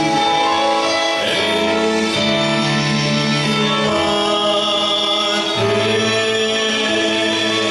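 A man singing a slow hymn through a microphone over sustained accompanying chords, the harmony shifting every second or two with no break.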